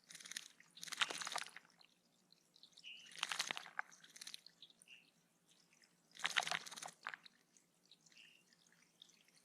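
A small bird bathing in shallow pond water, splashing in four short, crackling bursts. A few faint short call notes sound between the splashes.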